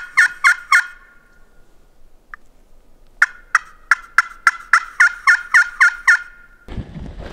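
Hen-turkey yelps made on a hunter's turkey call, evenly spaced at about three a second: one series trails off about a second in, and after a single short note a second series of about ten yelps follows. Near the end it cuts to wind on the microphone.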